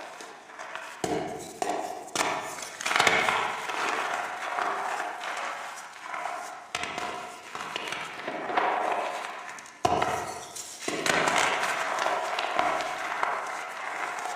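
Gritty, powdery reformed chalk being crushed and crumbled: repeated crunching, with a sharp crack starting each new crush every few seconds.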